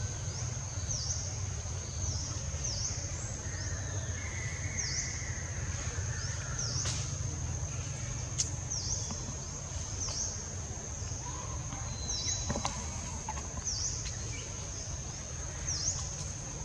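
Forest ambience: a steady high-pitched insect buzz, its pitch dipping briefly about once a second, over a low steady rumble.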